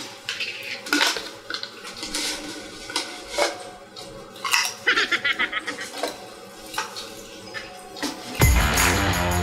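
Scattered clicks and crackles from a Pringles can being handled and potato chips being eaten, with a quick run of crunches about five seconds in. Background music starts near the end.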